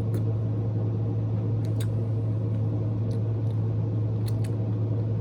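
A steady low mechanical hum with a few faint, brief clicks over it.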